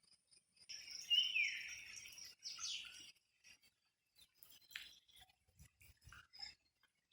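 A bird calling: a few short high chirps that fall in pitch, loudest in the first three seconds, with one more falling call later, over faint background noise.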